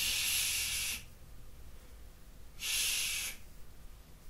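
A person shushing, 'shh', twice: a long one lasting about a second, then a shorter one a couple of seconds later.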